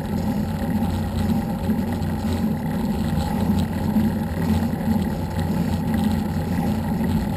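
A vehicle engine running steadily at cruising speed with a constant low drone, mixed with wind rushing over the microphone.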